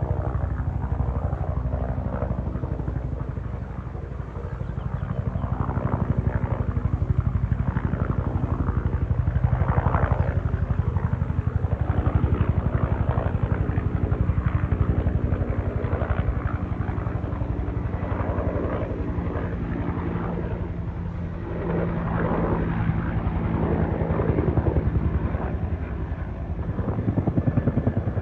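Helicopter flying overhead: the rapid, steady chop of its rotor blades over a low engine drone, swelling and easing a little as it moves.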